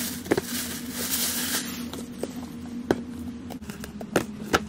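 Plastic shopping bag rustling as books are pulled out of it, then several light knocks as the books are handled and set down on a countertop. A faint steady hum runs underneath.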